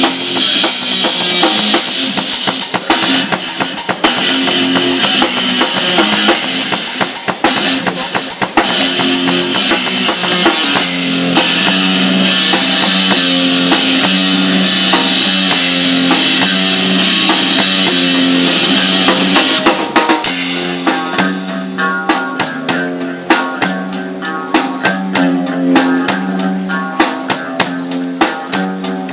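Rock music played on drum kit and electric guitar, with a steady beat and sustained guitar notes; the cymbals drop back about twenty seconds in and separate drum hits stand out.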